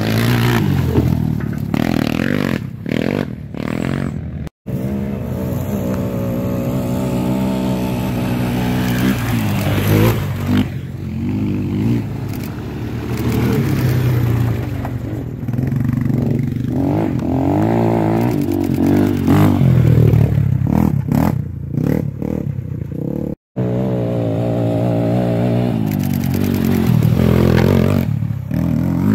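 Race quads' engines revving up and down through the gears as they ride hard over rough ground. The sound drops out for an instant twice, where clips are cut together.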